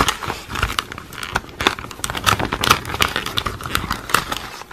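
A Parker Jotter pen's packaging being crinkled and crackled by hand as the pen is worked out of it, with many quick irregular crackles and clicks.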